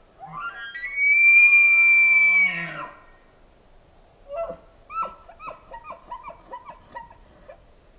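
Rutting bull elk bugling: a rising whistle that climbs and holds high for about two seconds over a low, rough growl. Then, about four seconds in, comes a quick run of a dozen or so short, falling chuckles.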